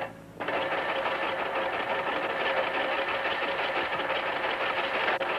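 A machine running steadily with a fast, even clatter over a steady hum, cutting in abruptly about half a second in.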